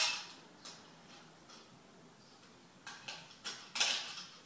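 Sharp clicks and small metal clinks from hand tools working sheet metal: a few spaced clicks, then a quicker run of them near the end.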